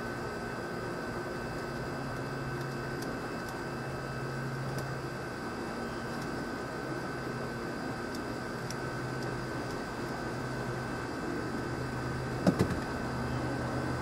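Steady mechanical hum with a constant high whine, and two sharp knocks in quick succession near the end.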